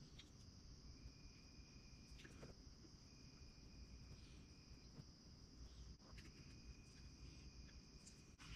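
Near silence: a faint, steady high-pitched trill with a fainter tone that comes and goes, and a few faint clicks, about a second in, near the middle and near the end.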